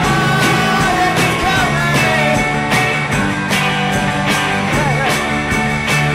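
Background rock music with a steady beat, singing and guitar.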